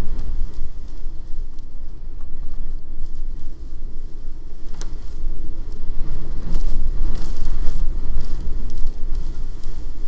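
Blizzard wind at around 120 km/h buffeting an outdoor security camera's microphone: a loud, low rumble that swells with a stronger gust in the second half. Blown snow crackles and patters against the camera.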